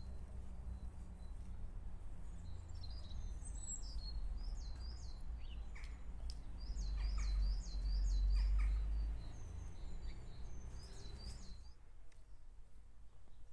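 Small birds chirping and singing in groups of short, high, repeated calls, over a steady low rumble.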